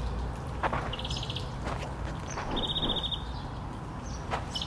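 A bird calling in short, high, rapid trills, three times, over outdoor mangrove background noise with scattered faint clicks.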